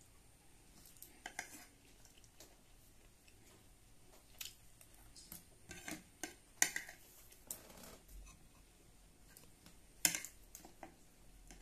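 Metal spoon clinking and scraping against a ceramic plate while scooping up rice, in scattered short strokes; the loudest come about two-thirds of the way through and again near the end.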